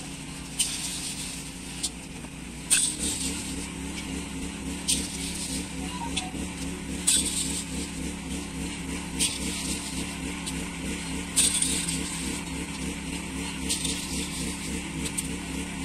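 Thermite welding powder being poured back and forth between two steel pans to mix it: a gritty hiss of pouring granules with sharp scrapes and clinks of the metal pans every couple of seconds. A steady engine runs underneath, its beat growing stronger about three seconds in.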